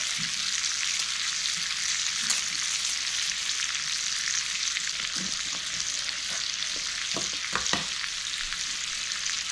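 Sliced kielbasa frying in bacon grease at medium-low heat, a steady, even sizzle. A few soft knocks come through in the second half.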